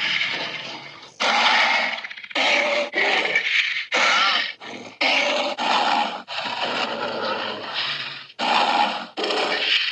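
Albertosaurus dinosaur sound effects: a run of about nine short, rough growls and roars, one after another, each starting abruptly with brief gaps between.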